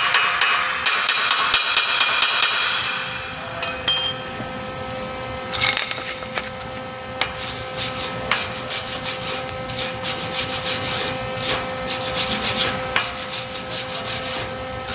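Fast back-and-forth scraping and scrubbing strokes of a hand tool on steel, cleaning slag off a fresh stick weld around the base of a steel pipe post. The strokes are dense for the first few seconds, then come as quicker separate scrapes from about halfway in, over a faint steady hum.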